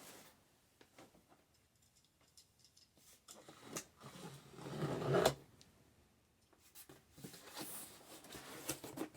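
Cardboard laptop box being opened and handled: a scraping, sliding sound grows louder and ends in a sharp click about five seconds in, followed by softer rustling and handling noises.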